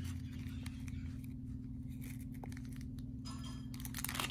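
Small clear plastic bag crinkling and rustling as fingers work it open, with scattered light clicks and the loudest rustle near the end. A steady low hum runs underneath.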